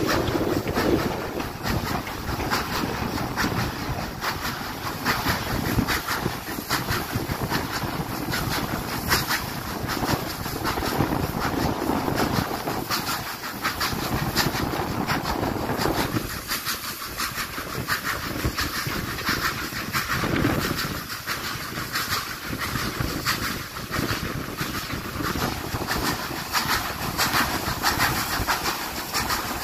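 A train running on rails: steady running noise with many quick clicks throughout.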